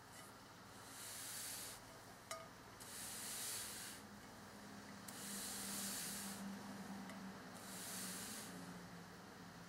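Ceramic serving plate being slid round in short turns on a textured table mat: four soft scraping hisses of about a second each, with one small click a little over two seconds in.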